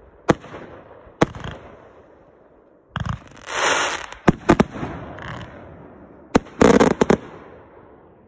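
Aerial fireworks from consumer multi-shot cakes firing and bursting overhead: sharp separate bangs, then a rushing hiss with a run of bangs a little past three seconds in, and a tight cluster of bangs about six and a half seconds in, fading away near the end.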